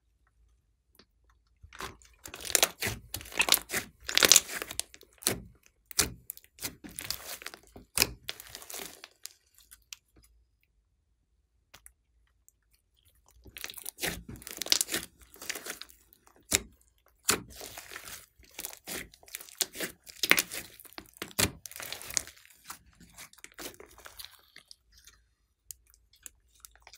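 Hands squeezing and folding a large mass of slime mixed with clay and makeup, making sharp wet crackles and pops. The crackling comes in two long bouts with a pause of a few seconds between them.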